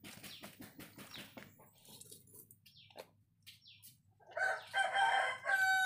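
Chickens clucking, loudest from about four seconds in, a run of short broken pitched calls, after a stretch of quieter clicks and taps.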